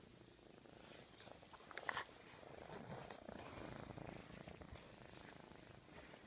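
Siamese kitten purring faintly while being stroked, the purr strongest in the middle, with a couple of light clicks about two seconds in.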